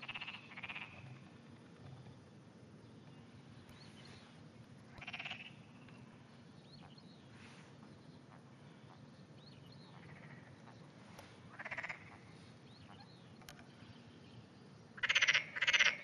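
Frogs croaking in short, rapidly pulsed calls: a pair just after the start, single calls around five and twelve seconds in, and a louder pair near the end.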